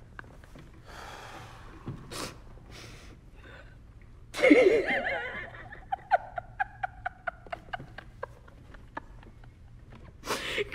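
A person making wordless vocal sounds: breathy hissing, then about four seconds in a loud wavering vocal cry, followed by a held note over a run of sharp clicks, and another loud vocal outburst near the end.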